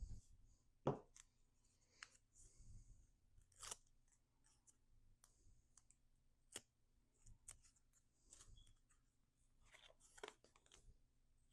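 Faint rustling and light clicks of cut cardstock pieces and foam tape being handled and pressed together, with one sharper tap about a second in.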